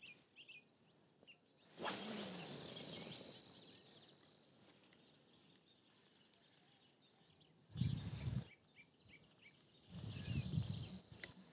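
Faint bird chirps over a quiet lake, with a sudden burst of noise about two seconds in that fades over a second or so, and low rumbling knocks near the end.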